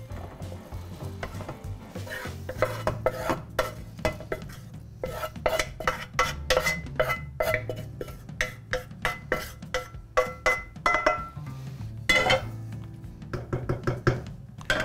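A utensil scraping and knocking against a frying pan and a soup pot, with many quick clinks and scrapes starting about two seconds in, as softened sautéed vegetables are emptied from the pan into the pot.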